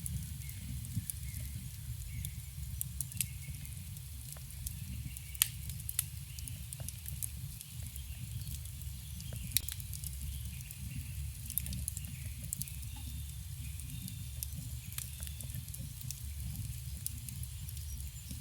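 Campfire burning: a steady low rush of flame under frequent sharp crackles and pops of burning wood, with two louder pops about five and a half and nine and a half seconds in.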